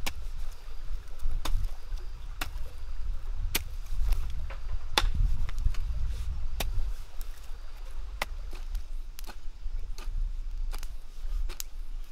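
Long-handled hoe chopping into dry, clumpy soil: sharp strikes and crumbling roughly once a second, over a steady low rumble.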